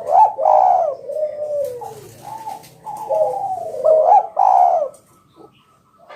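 Spotted dove (tekukur) cooing its deep, rolling phrase twice, then falling quiet about five seconds in.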